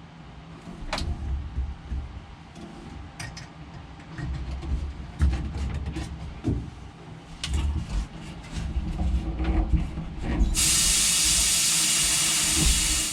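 Scattered knocks and clicks of parts and tools being handled. About ten and a half seconds in, a loud, steady hiss of compressed air starts, lasts about two and a half seconds, then cuts off.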